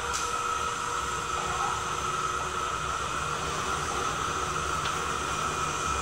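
Airbus A320 running on the apron during pushback: a steady whining hiss with a high whine held level throughout.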